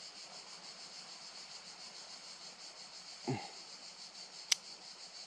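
Insects chirring steadily in a high, pulsing drone, with a short grunt a little past three seconds and a sharp click from multi-tool pliers being worked by hand about four and a half seconds in.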